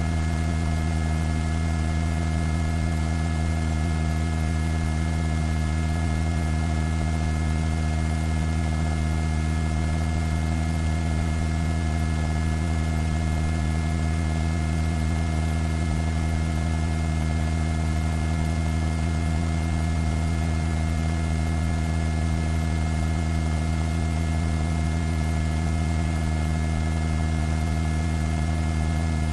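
Steady drone of a helicopter heard from inside the cabin: a low hum with several higher steady tones above it and a faint hiss, unchanging throughout.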